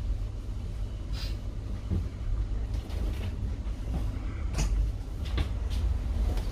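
Low, steady rumble of a double-decker bus heard from inside on the upper deck, with a few short knocks and rattles.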